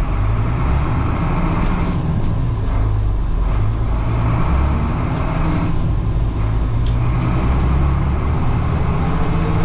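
International 4900 medium-duty truck's engine running under way, heard from inside the cab, with road noise; its low note shifts in pitch several times.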